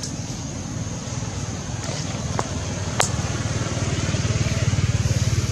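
A motor vehicle engine running steadily with a low pulsing throb that grows louder near the end, with a single sharp click about three seconds in.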